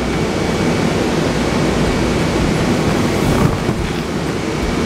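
Inflatable bounce house's electric blower fan running, a steady rush of air.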